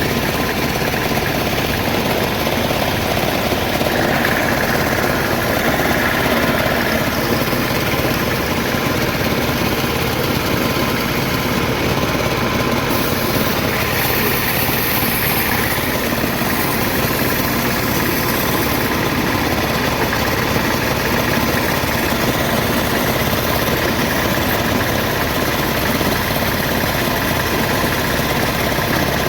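A motor-driven machine running steadily, an even mechanical noise with a faint hum.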